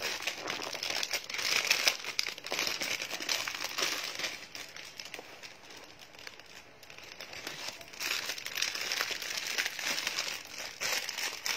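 Pink plastic wrapper of a Barbie Color Reveal doll crinkling as it is handled and pulled at by hand: busy for the first few seconds, quieter through the middle, and picking up again near the end.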